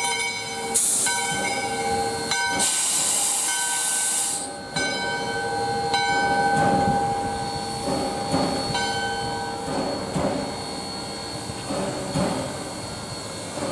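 A 2-8-2 steam locomotive standing and letting off steam: loud bursts of steam hiss about a second in and again from about two and a half to four and a half seconds, over a steady pitched hum that keeps breaking off and starting again.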